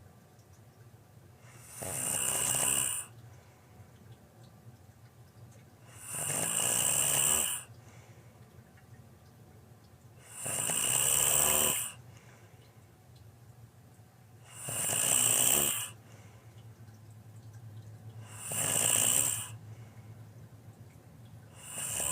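A person snoring loudly in regular breaths, one harsh snore about every four seconds, with a faint steady low hum between them.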